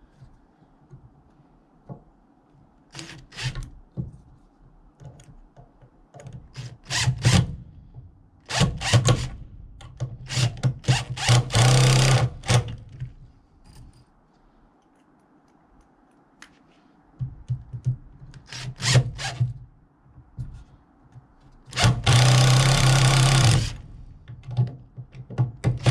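Power drill driving screws to fasten a door hinge onto a wooden log ramp: short bursts of the motor and a few knocks, then two longer runs of about a second and a half each, about halfway through and near the end, as the two screws go in.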